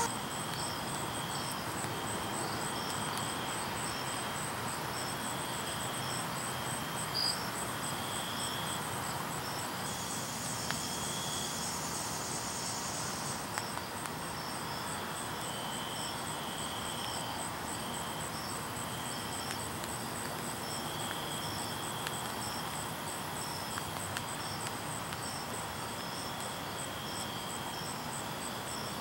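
Insects chirping in an evening chorus, several at different high pitches, one in short trills repeating about every two seconds, over a steady hiss.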